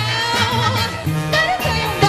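A live band playing an upbeat ska-style number with bass, drums and a wavering lead melody line.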